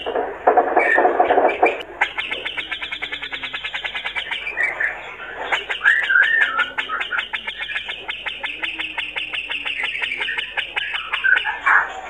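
Male grey-cheeked bulbul (cucak jenggot) singing in a fast, rattling chatter of rapidly repeated notes. A short warbled whistle phrase comes in about six seconds in.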